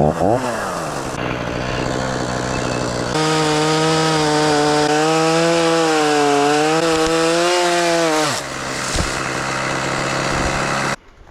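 Gas chainsaw idling, then run up to full throttle and cutting for about five seconds, its pitch wavering as the chain takes the load, then dropping back to idle; the sound cuts off suddenly near the end.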